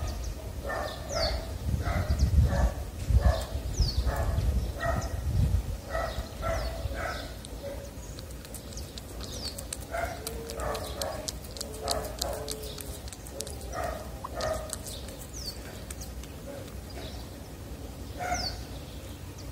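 Tabby cat chewing and lapping wet cat food from a plastic dish right at the microphone: a run of short, wet smacking bites a few a second, with low knocks against the dish in the first few seconds, thinning out and getting quieter in the second half.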